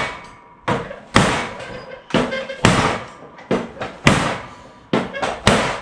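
A KA-BAR 1245 tanto knife, 1095 Cro-Van steel, stabbed repeatedly into a thin sheet-metal panel as a tip-strength test. There are about nine sharp metallic hits, some harder than others, each followed by a brief ringing of the panel.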